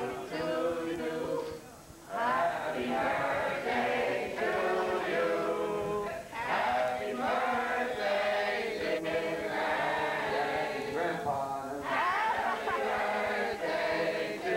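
A group of voices singing together like a choir, with a short break about two seconds in.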